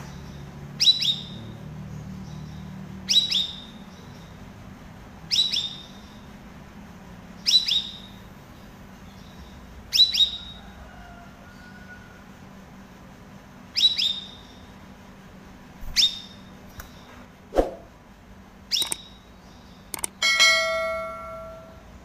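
A caged cucak rawis giving a sharp, high call that sweeps downward, repeated about every two seconds. Near the end it gives a longer, lower, ringing note.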